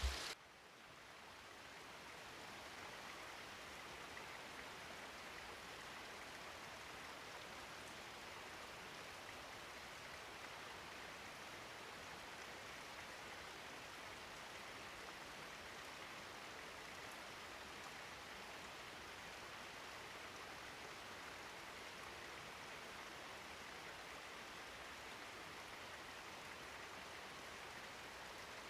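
Faint, steady rushing of river water flowing, an even hiss with no distinct splashes or other events.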